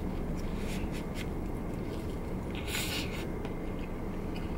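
Paper food wrapper rustling and crinkling, with a few small clicks early on and one longer rustle about three seconds in, over a steady low rumble inside a car.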